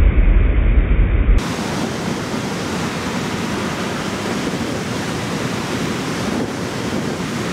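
Steady rushing noise of wind and surf, with a heavy low rumble of wind on the microphone in the first second and a half that then stops.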